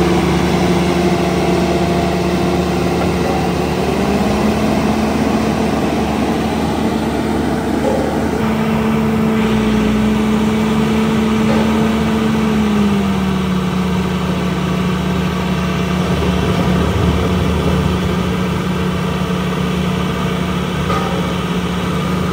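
Skid-steer engine running steadily under load while working a hydraulic ground-grinding rotor attachment. Its note rises slightly about four seconds in and settles back down around thirteen seconds.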